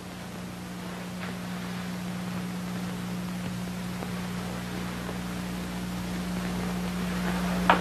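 Steady hiss with a low hum, growing slightly louder, and one short knock near the end.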